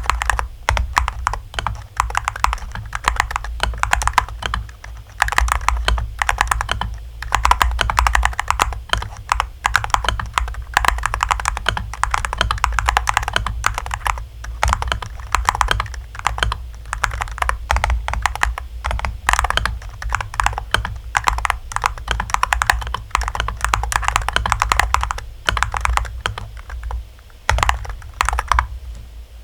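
Fast, continuous typing on an Angrymiao Retro 63 RT keyboard: a dense stream of key clacks with a few brief pauses, over a steady low hum.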